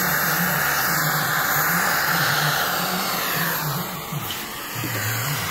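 Handheld gas torch burning with a steady hiss as its flame heats an aluminium scooter crankcase half. About three and a half seconds in, the hiss drops and turns uneven as the torch is moved away.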